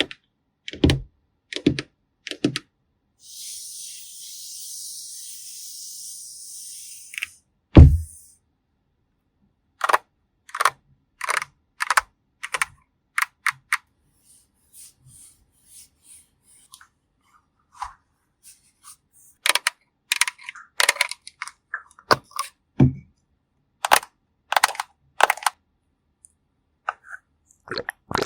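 Close-up ASMR makeup sounds: a string of crisp clicks and taps, like cosmetic cases and tools being handled, a steady hiss lasting about four seconds, and one heavy thump just before 8 seconds, the loudest sound.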